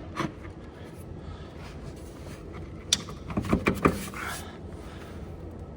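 A sharp click about three seconds in, followed by a short run of light knocks and rattles: parts and tools being handled by hand in a machine's engine compartment.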